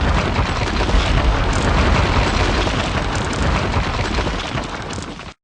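Explosion sound effect of a wall blasting apart, made for a video intro: a loud, continuous rumbling blast that eases a little, then cuts off abruptly near the end.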